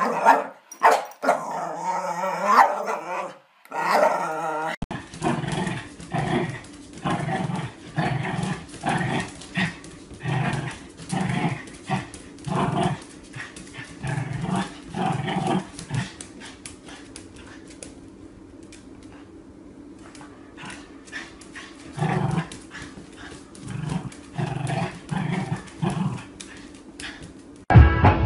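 Small dogs growling and barking. One dog growls and yaps at a toy, then after a cut another small dog barks over and over, about once a second, with a lull in the middle.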